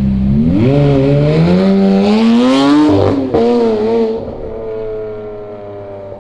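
Lamborghini Aventador LP700-4's V12 on an EH Exhaust full system accelerating hard. The engine note climbs for about three seconds, breaks with a sharp crack at a gear change, rises again briefly, then settles into a steadier note that fades as the car pulls away.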